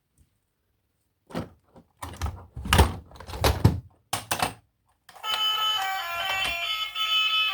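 A handful of short knocks and bumps, then background music with a melody of short held notes starts about five seconds in.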